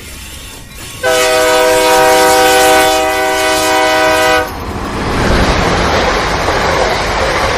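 Train horn sounding one long, steady blast starting about a second in, then cutting off into the rumble of a train running along the rails.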